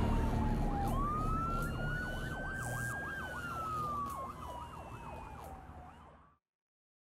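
Emergency vehicle sirens: a slow wail rising and falling, with a faster yelping siren sweeping over it and a low rumble underneath. They fade steadily and cut off about six seconds in.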